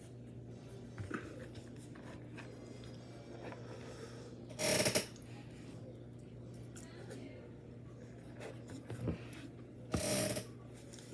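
Close-up eating sounds: quiet chewing with small clicks, and two loud half-second bites or crunches, one about four and a half seconds in and one near the end. A low steady hum runs underneath.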